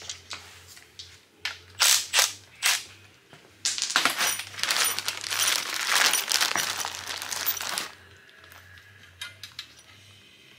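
A few sharp metallic clicks and clinks, then about four seconds of a clear plastic hardware bag crinkling as it is handled, ending a little under two seconds before the end, followed by a few light ticks.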